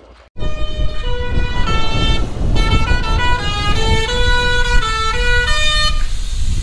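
Truck musical horn playing a tune of short held notes that step up and down, starting just after the beginning and stopping about six seconds in, over a low rumble of engine and wind.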